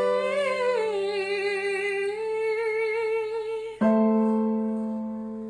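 Woman singing a wavering, held phrase over a sustained electronic keyboard chord. About four seconds in, a new keyboard chord is struck and rings on, slowly fading.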